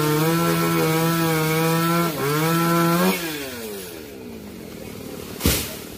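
Two-stroke chainsaw running at high revs, dipping briefly about two seconds in, then winding down and fading after about three seconds. One sharp knock near the end.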